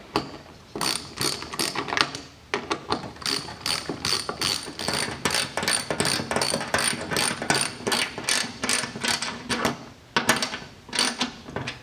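Hand ratchet clicking in quick, even strokes, about three or four clicks a second, as screws with washers are run down into a fuel cell's fill plate, with a short pause near the end.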